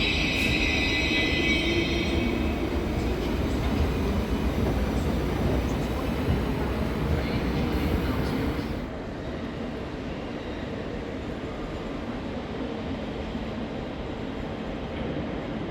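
Train running on the rails with a steady rumble; a high wheel squeal fades out over the first couple of seconds. About nine seconds in the sound drops suddenly to a quieter, duller rumble.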